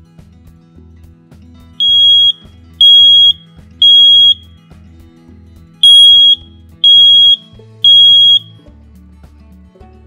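Household smoke alarm sounding: two sets of three loud, high-pitched beeps, each about half a second long, with a pause between the sets. This is the temporal-three pattern, the standard signal to get out.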